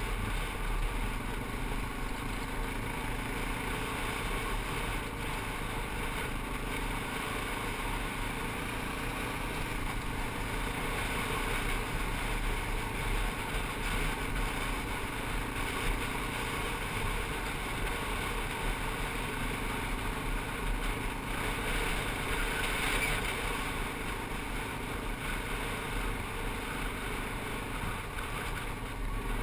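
ATV engine running steadily while riding, with wind and tyre noise over a gravel road.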